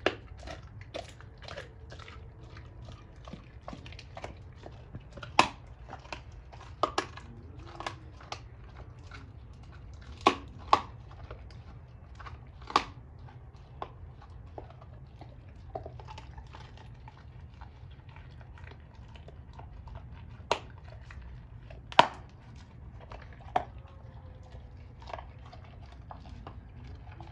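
A Doberman chewing a raw pork bone with meat on it: irregular crunching with sharp cracks, a few much louder than the rest, over a faint steady low hum.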